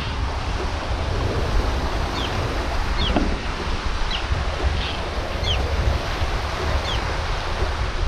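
Wind buffeting the microphone over surf washing onto a rocky shore, with a few short, high, falling chirps scattered through it.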